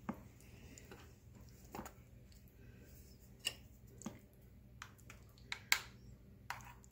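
A handful of faint, scattered clicks and taps from a metal spoon knocking against a glass bowl as pizza egg roll filling is scooped.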